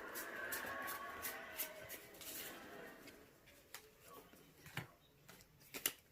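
Pokémon trading cards being handled and flipped through: scattered light clicks and soft rustles, the sharpest about five and six seconds in.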